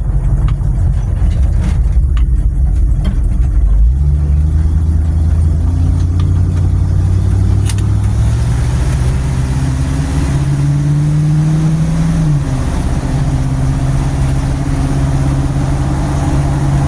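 Car engine and road noise heard loudly inside a stripped cabin with no interior trim: heavy rumble at first, then the engine note climbs slowly under acceleration, drops suddenly about twelve seconds in at a gear change, and holds steady while cruising.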